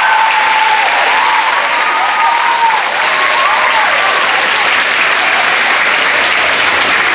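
Audience applauding, with high pitched calls gliding up and down over the clapping in the first few seconds.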